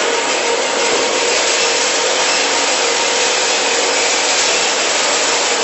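Pellet bag-packing machine line running: a steady, dense machine noise with a constant hum underneath and no breaks.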